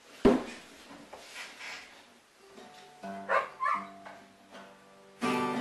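Acoustic guitar: a sharp knock about a quarter second in, a few picked notes from about two and a half seconds, then a loud strummed chord near the end. Two short animal calls come between the notes, around the middle.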